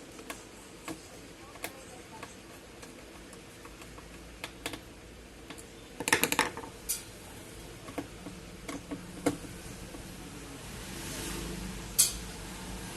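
Small hard clicks and taps of tools and parts being handled during an LED repair, with a quick rattling cluster about six seconds in and a single sharp click near the end.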